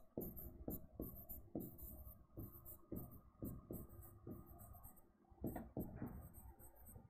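Handwriting on an interactive board: the stylus gives a quick series of short taps and scratches against the screen as words are written out, with a brief pause about five seconds in.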